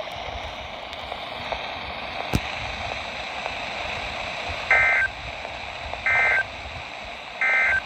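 Weather radio receiver sounding the SAME end-of-message code: three short digital data bursts about a second and a half apart, starting a little past the middle, over steady radio static hiss. The bursts mark the close of the required weekly test broadcast.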